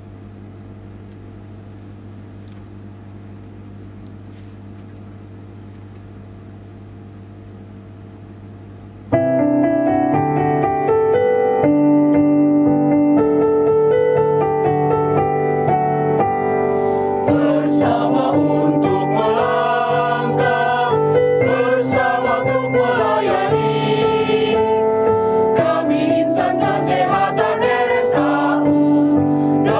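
Electronic arranger keyboard playing an instrumental introduction. For about nine seconds there is only a quiet, steady held chord; then the full accompaniment comes in suddenly and much louder, with sustained chords and, from about halfway, a moving melody line over them.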